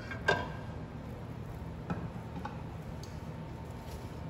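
A few light clicks and knocks of metal tongs against a stainless steel pan as a cooked flank steak is lifted out and set on a wooden cutting board. The sharpest click comes about a third of a second in, and the rest are fainter and spread out, over a low steady hum.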